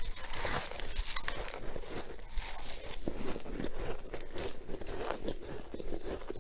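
Close-up crunching and chewing of a mouthful of freezer frost, a dense run of small crackling crunches.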